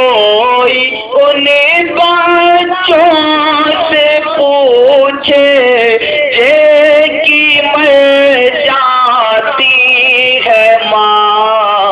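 A single male voice singing a long, drawn-out melodic line without clear words, the pitch bending and ornamented throughout, in the style of a devotional nazm.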